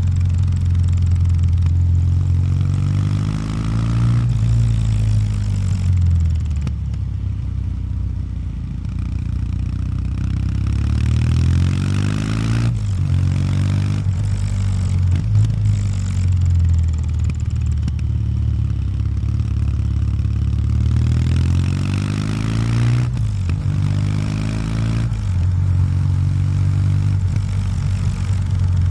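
Kawasaki W800 Street's air-cooled parallel-twin engine on its stock exhaust, heard from the saddle while riding. The engine note rises in pitch under acceleration and drops back sharply at each gear change, several times over, with stretches of steadier cruising and easing off between.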